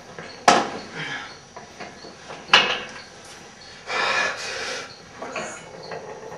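Handling noise from a home weight bench and barbell as a lifter settles onto the bench and grips the bar: two sharp knocks about two seconds apart, a short rustling hiss, and a few lighter ticks.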